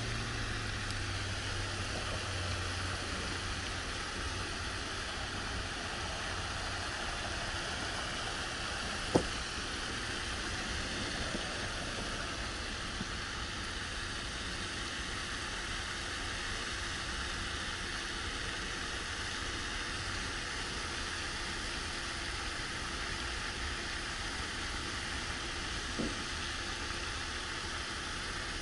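Steady outdoor hiss with no clear pitch, broken by one sharp click about nine seconds in and a fainter click near the end.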